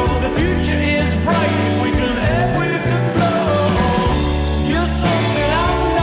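Background rock song with a singing voice over guitar and a steady bass line.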